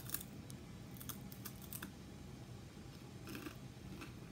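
Barbecue potato chips being bitten and chewed: a series of short, sharp crunches in irregular clusters.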